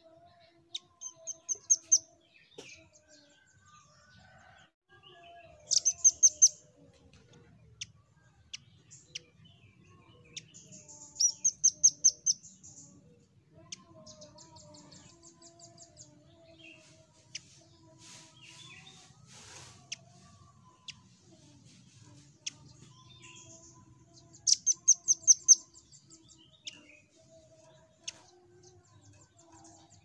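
Velvet-fronted nuthatch calling: rapid runs of sharp, high chipping notes, loudest in a few short rattling series, with fainter single chips between.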